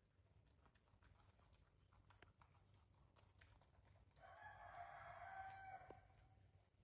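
Rooster crowing once, a single drawn-out call of about two seconds starting about four seconds in, over faint background ticks.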